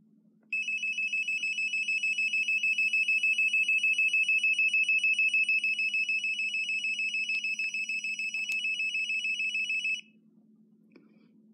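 DeLorme inReach SE satellite communicator sounding its SOS alert: a high-pitched, rapidly pulsing electronic beep that starts about half a second in and cuts off suddenly near the end. It is the warning that an SOS call is being initiated and counting down to send.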